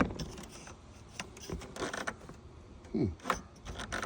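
Scattered small clicks and rattles of plastic trim clips and engine-bay covers being handled and worked loose by hand, in an Audi SQ7's engine bay.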